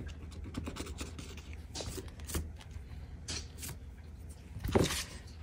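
Pen scratching on a paper savings-challenge chart as a spot is coloured in, in many quick short strokes. These give way to a few handling scrapes and a louder brief rustle near the end.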